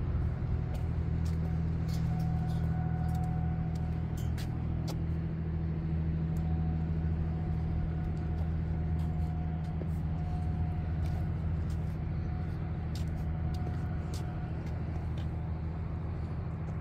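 Steady low engine hum with a constant, unchanging pitch, and a few faint clicks over it.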